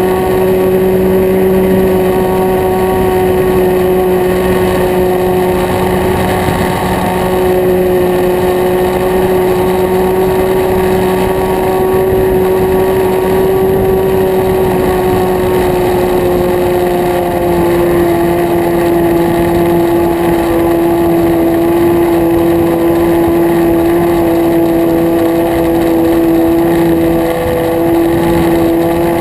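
Nitro glow engine of an RC plane running steadily at high throttle, heard close-up from a camera mounted under the wing. It is a loud, high buzz whose pitch eases down slightly about two-thirds of the way through, then holds.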